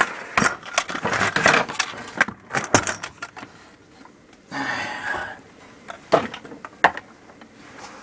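Rummaging through boxes of ammunition: a string of rattles and sharp knocks, a short rustling burst about halfway, and a few separate knocks near the end.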